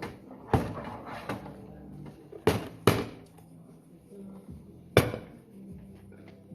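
Dishes and kitchenware clattering as they are washed: about five sharp knocks with brief ringing, two close together near the middle of the clip, over a faint steady hum.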